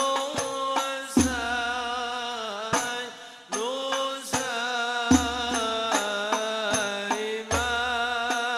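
Arabic devotional qasida (sholawat) sung to a Banjari rebana accompaniment. The voice carries a long, ornamented melody over sharp frame-drum strokes, with a deep bass-drum boom three times.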